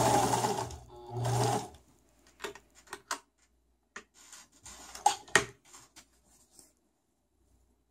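Electric sewing machine running in two short bursts of stitching, the first about a second long and the second about half a second, as a test after its upper thread tensioner and bent tension spring were repaired. Then a few light clicks.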